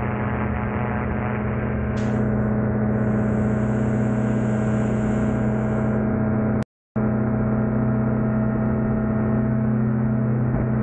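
Rotax 582 two-stroke twin engine and propeller of an ultralight running at a steady speed, one even droning tone with no change in pitch. The sound cuts out for a split second about seven seconds in.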